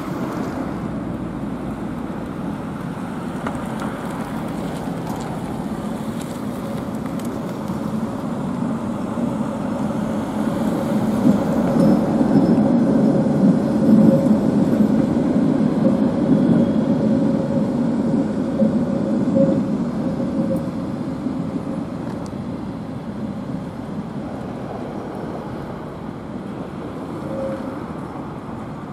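Tatra KT8D5 articulated tram rolling along curved track, its rumble building to a peak around the middle as it passes close, then easing off. A thin steady tone rides over the rumble while it is closest.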